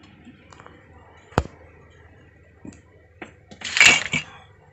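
Handling noises at a bench: a few sharp clicks, the sharpest about a second and a half in, then a brief scraping rustle near the end as the open SMPS and test leads are moved about.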